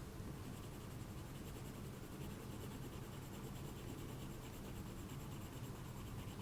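Crayon rubbing on paper in faint, quick back-and-forth strokes, with a low steady hum underneath.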